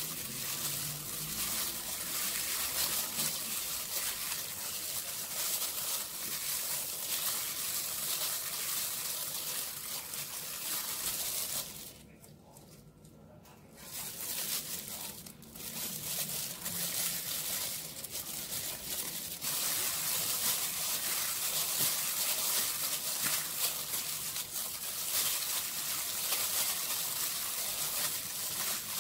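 Clear plastic food glove crinkling and rustling as a hand crumbles and mixes fermented pork sausage in an aluminium pot. The sound drops out briefly about twelve seconds in, then comes back.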